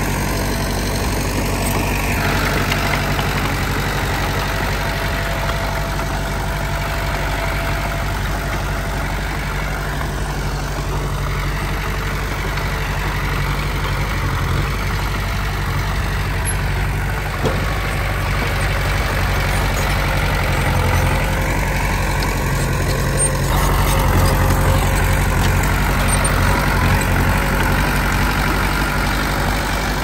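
Heavy diesel engine of earthmoving machinery running steadily, with a low, even hum. It grows louder about 23 seconds in.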